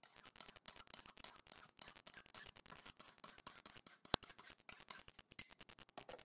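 A dull kitchen knife scraped rapidly back and forth across the unglazed foot ring of an upturned ceramic bowl to sharpen it: quick repeated gritty strokes, with one sharp clink about four seconds in.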